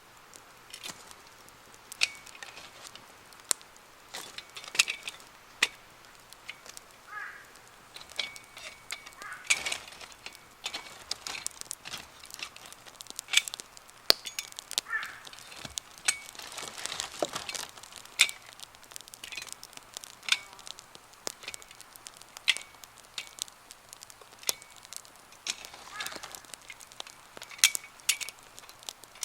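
Wood campfire crackling and popping, with sharp snaps at irregular intervals. A bird calls a few times in the background.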